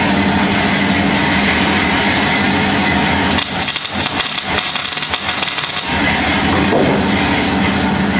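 Electric welding arc on thick steel tubing: a steady crackle and hiss over the welder's electrical hum, crackling harder for a couple of seconds from about three and a half seconds in.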